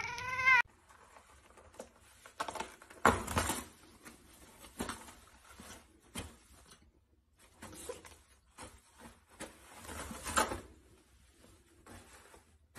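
A cat's meow, cut off within the first second. Then irregular rustling and scratching of toilet paper as a cat paws and pulls at the roll, loudest about three seconds in and again about ten seconds in.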